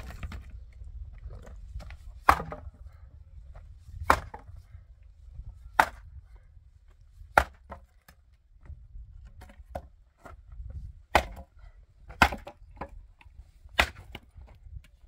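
An axe chopping a wooden branch for firewood: seven sharp strikes, roughly one every one and a half to two seconds, with a longer gap midway.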